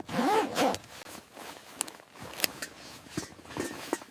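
A zipper pulled quickly over the first second, then a few sharp clicks and small knocks of gear being handled and packed.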